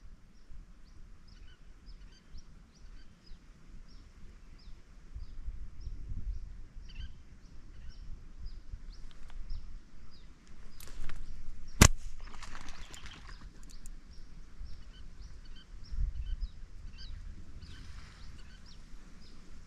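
Outdoor rural ambience: a steady train of short, high chirps repeating about twice a second over a low rumble. About twelve seconds in, a single sharp crack, the loudest sound, is followed by a brief rustling hiss.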